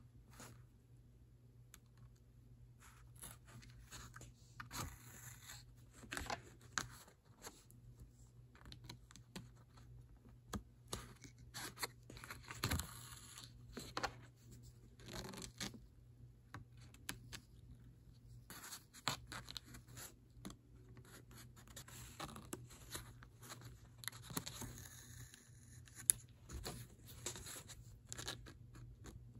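Needle and thread drawn through a sewing practice card and pulled snug, stitch after stitch: faint, irregular short rasping scrapes and rustles, over a low steady hum.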